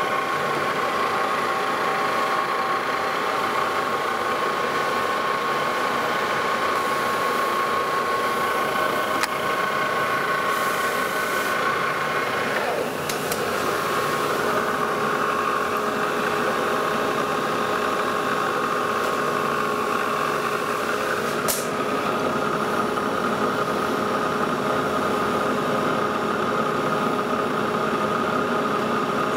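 Lodge & Shipley metal lathe running with a steady, multi-toned hum, spindle turning for a light finishing pass. The tones shift about 13 seconds in, when the spindle stops, and again about 21 seconds in; the machine hum carries on after the spindle has stopped.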